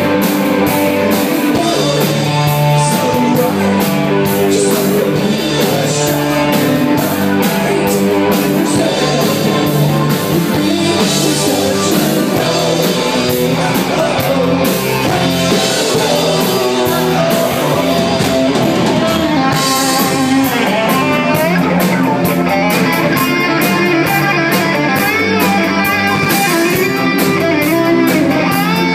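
Live rock band playing loudly and steadily: electric guitar and bass guitar over a drum kit.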